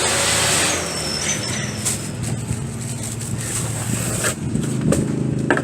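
Styrofoam and plastic packing being handled and pulled from a refrigerator's box: a loud scraping rustle in the first second, then scattered knocks and creaks, over a steady low hum.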